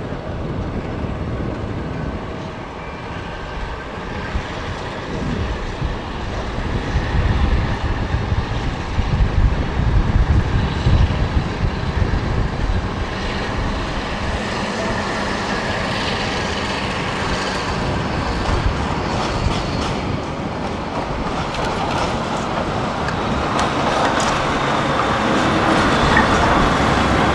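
Class 52 'Western' diesel-hydraulic locomotive D1015 'Western Champion', with its twin Maybach diesel engines, pulling away under power with a train of coaches. The deep engine rumble is loudest about eight to twelve seconds in as it passes close, then the coaches follow with wheels clicking over the rail joints.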